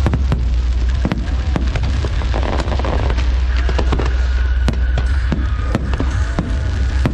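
Aerial fireworks bursting in quick succession: many sharp cracks and bangs, several a second, over a continuous low rumble.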